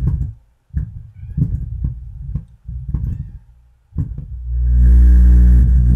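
Miller & Kreisel MX-125 subwoofer amplifier humming through a small test speaker: a low buzzy hum that surges in several short bursts, then swells into a loud steady hum for about two seconds near the end. It should make no hum at all; the repairer suspects a bad filter capacitor and dirty crossover-frequency and bass-level pots.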